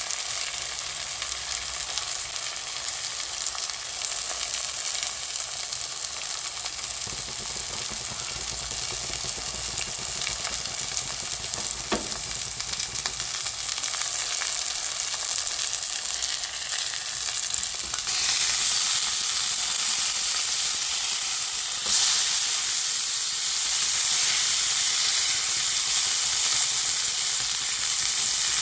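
Beef steak frying in a pan: a steady, crackling sizzle of fat and juices with occasional sharp pops. It grows louder about two-thirds of the way through.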